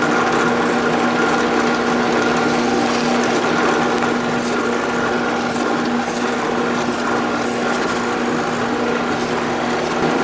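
Drill press running steadily, its 5/32-inch bit drilling small holes through a wooden template board.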